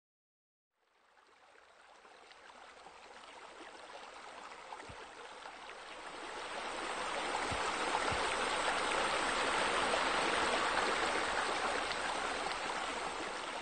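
Running water from pool water features, a steady rushing splash that fades in about a second in and grows louder until a little past halfway, then holds steady.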